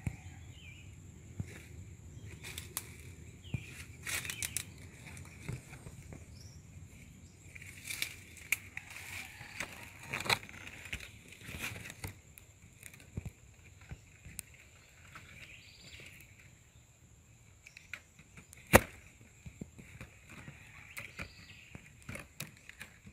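Leaves and vine stems rustling and brushing against a handheld camera as it is moved through dense foliage, with scattered handling clicks and one sharper knock late on. A faint steady high-pitched drone runs underneath.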